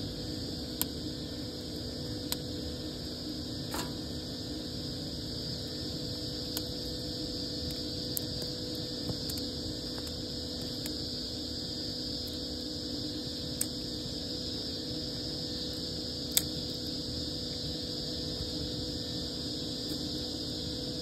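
Wood fire burning in an outdoor brick fireplace, giving off sharp crackles and pops every few seconds, one louder pop late on, over a steady hum.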